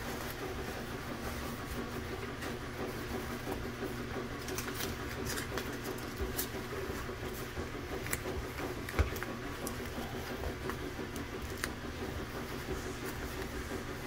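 Paper towel being crumpled and wrapped around a cordless drill's chuck, with light scattered crinkles and clicks and a single knock about nine seconds in, over a steady low hum.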